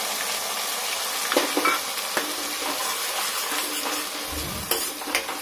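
Ground onion paste sizzling in hot oil with cumin seeds in a deep pan, with a spatula stirring through it and knocking against the pan a few times.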